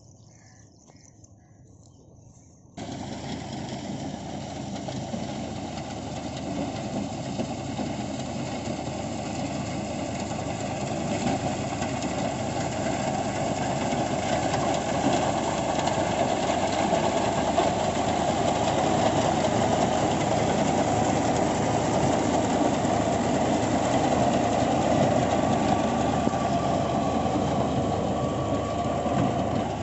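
Tractor engine running with a tractor-driven wheat reaper working: a dense, steady mechanical clatter that cuts in abruptly about three seconds in and slowly grows louder.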